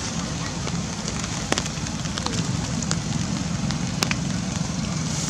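Steady rain falling, with scattered sharp ticks of drops landing close by.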